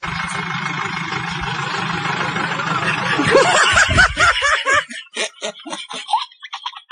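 A bus engine runs with a steady low rumble and hiss. About three seconds in, someone starts laughing over it, and the laughter breaks into short repeated bursts of 'ha-ha' near the end.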